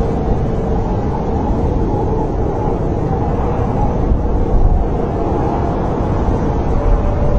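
Snowstorm wind blowing steadily as a deep, even rumble, with a faint wavering whistle of howling wind over it.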